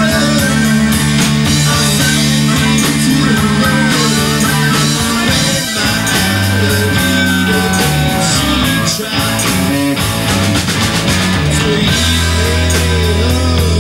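Rock band playing an instrumental passage: guitar lines over held bass notes that change every few seconds, with no singing.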